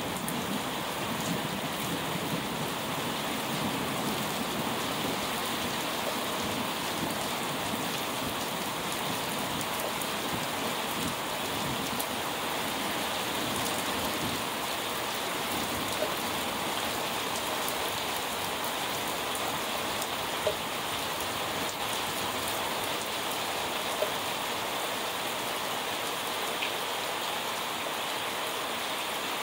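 Heavy thunderstorm rain pouring down steadily and splashing on the ground, with three sharp single taps from drops in the second half.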